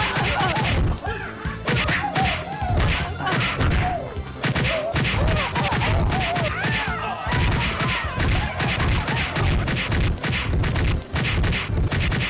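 Staged fight: a rapid, unbroken run of whacks and thumps from punches and kicks landing, over background music.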